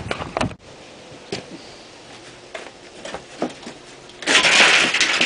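Light knocks and taps of hands handling a wooden trailer-door frame, then about a second of loud scraping near the end as a piece of the frame is worked loose.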